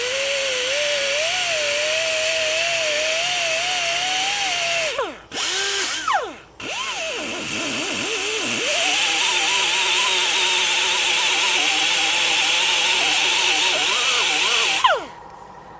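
Handheld grinder abrading the rubber of a car tire's sidewall, its motor whine wavering with the load. It is let off twice, about five and six seconds in, winding down and back up, and it stops near the end with a falling whine.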